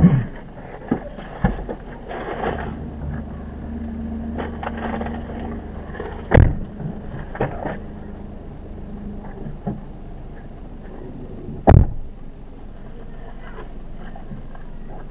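Cabin of a 2017 Daihatsu Ayla 1.0 automatic with its three-cylinder engine running steadily, broken by a few sharp thumps, the two loudest about six and twelve seconds in.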